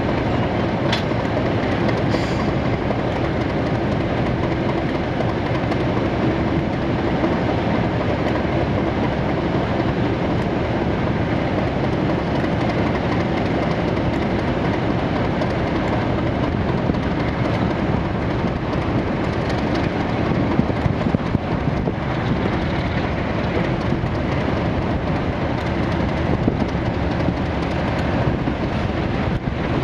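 A Class 47 and a Class 37 diesel locomotive working hard under power, a steady loud engine noise with wheels running over the rails. The Class 37 is on test.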